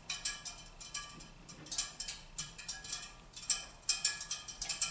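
Hot-water baseboard heating register ticking and pinging with ringing, bell-like metallic notes as the heat runs, about three or four irregular ticks a second. Kind of musical.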